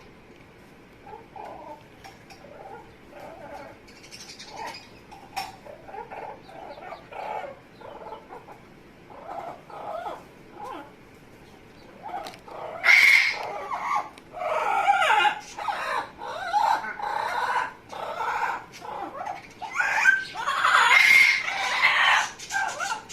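An Amazon parrot making funny vocal noises: soft, short calls repeated for about twelve seconds, then a run of much louder, harsher calls from about thirteen seconds in.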